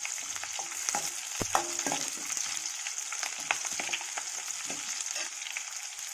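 Chopped onions and dried red chillies sizzling in oil in a stainless steel kadai, a steady hiss, while a slotted steel spatula stirs them, scraping and clinking against the pan again and again.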